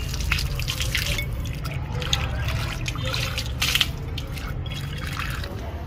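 Water being poured from a container into a pets' drinking bowl, splashing and trickling unevenly over a low steady rumble.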